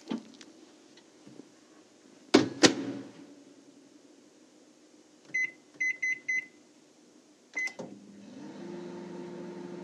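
Microwave oven being set going: two loud clunks, then four quick keypad beeps and one more beep, after which the oven starts running with a steady hum whose tone rises briefly and then holds.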